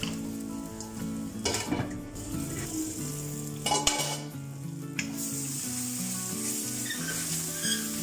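Chopped onion and tomato with ginger-garlic paste sizzling in hot oil and ghee in a stainless steel pan, stirred with a wooden spatula. The sizzle is steady, with two louder knocks about a second and a half and four seconds in.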